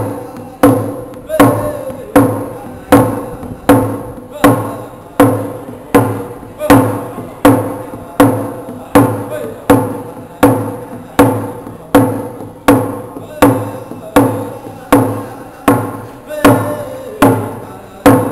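Hand drum song: a man singing in a sustained, full voice while striking a rawhide frame hand drum in a steady beat, about four strikes every three seconds, each strike ringing out before the next.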